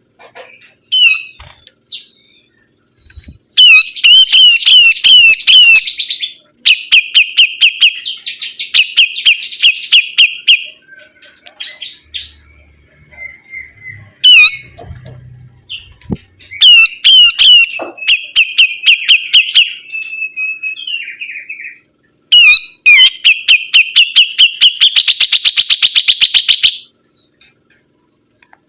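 A sibuntung bird singing vigorously: loud, rapid runs of repeated chattering notes in several bouts of a few seconds each, separated by short pauses.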